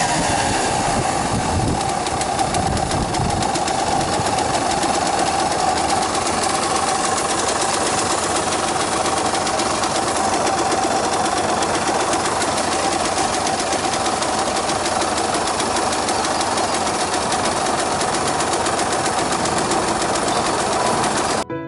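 Yamaha DT230 Lanza's two-stroke single running at a steady speed while being ridden, its engine note dipping in pitch in the first second and then holding, under a lot of rushing noise. It cuts off suddenly near the end and piano music starts.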